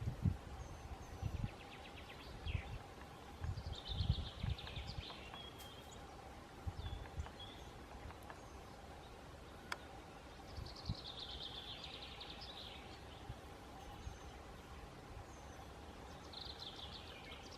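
Black woodpecker chiselling out a nest hole in a tree trunk: irregular dull knocks, coming thick in the first few seconds and more sparsely after. Songbirds sing short trilled phrases in the background, and a faint steady hum runs underneath.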